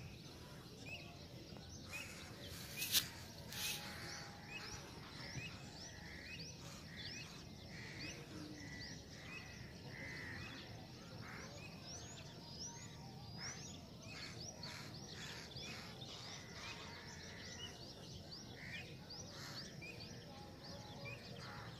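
Faint birdsong: many short, repeated chirps, with a sharp click about three seconds in.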